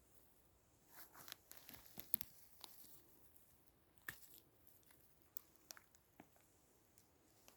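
Faint scattered crackles, snaps and rustling of forest-floor litter and twigs being handled, with a dozen or so sharp clicks, the loudest about two and four seconds in.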